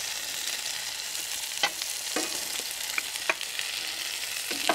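Food sizzling steadily in a frying pan on a gas burner, with about five sharp clinks and knocks as a wooden pestle works mashed potatoes through a steel conical strainer.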